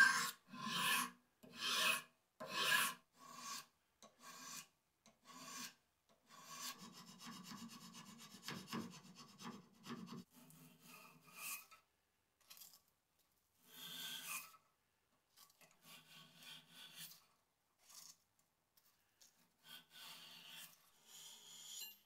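Flat hand file scraping across the edge of a steel knife blank cut from an old circular saw blade, in separate strokes about once a second, the first few the loudest. Then about four seconds of continuous rubbing, followed by fainter, scattered strokes.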